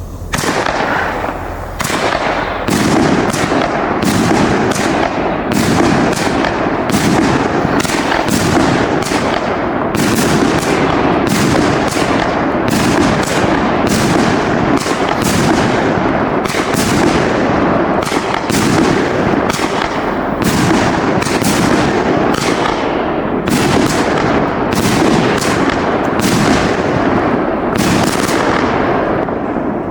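A 25-shot, 30 mm firework cake fires its tubes in quick succession, a sharp bang every second or less over a steady noisy haze.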